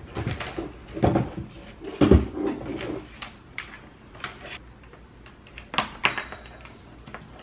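Handling sounds from a small desktop printer and its cables: a few thumps and knocks, the loudest about two seconds in, then lighter clicks and cable rattles. A faint, steady high tone starts about halfway through.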